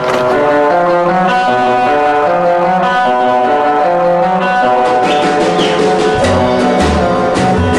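Instrumental background music led by brass horns. It starts abruptly, and a deeper bass comes in about six seconds in.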